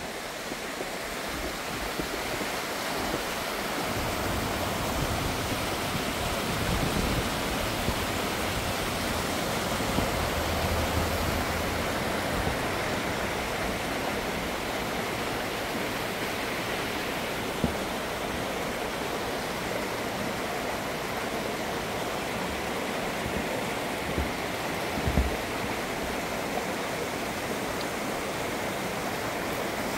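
Mountain stream running over rocks, a steady rushing that grows a little louder over the first few seconds, with a few brief low thuds on the microphone.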